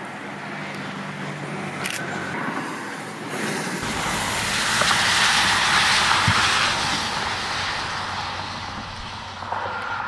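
Road traffic: a car passing on the highway, its noise swelling about four seconds in, peaking, then fading away over the next few seconds.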